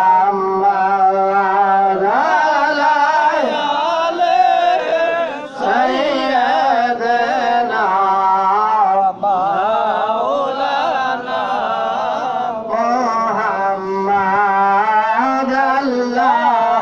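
A man singing a devotional ghazal in long, ornamented phrases over a steady sustained drone, with short breaks between phrases.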